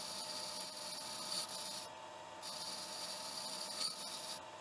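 Metal lathe boring out the inside of a chuck insert: a steady scraping hiss from the boring bar cutting, over a steady hum from the running lathe. The cutting hiss breaks off briefly about two seconds in and again near the end.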